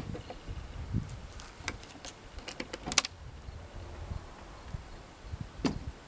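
Scattered mechanical clicks and knocks from a 1967 Olympia SM9 portable manual typewriter being handled, the sharpest about three seconds in.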